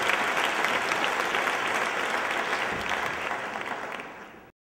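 Audience applauding steadily, easing off slightly before the sound cuts off abruptly near the end.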